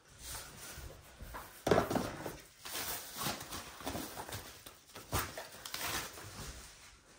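Cardboard packaging being handled and lifted out of a monitor box: irregular rustling and scraping with several knocks, the loudest about a second and a half in.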